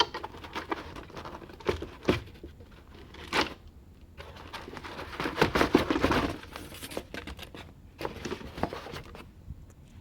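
Plastic packaging crinkling and rustling as a quadcopter is lifted out of its box, with scattered clicks and knocks; the densest rustling comes a little past the middle.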